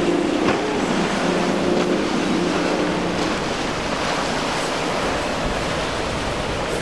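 Surf and waves washing in a rough inlet with wind noise on the microphone, under the steady drone of a boat's outboard motor that fades out about three seconds in.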